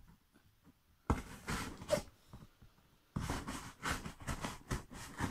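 Knife blade cutting along the taped seam of a cardboard box, scratchy slicing noise: a short stretch about a second in, then a longer one from about three seconds on.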